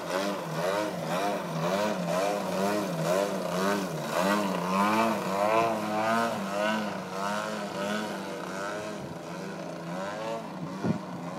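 Radio-controlled aerobatic model airplane's engine and propeller running hard, the pitch swinging up and down again and again as it flies its manoeuvres, growing somewhat quieter near the end.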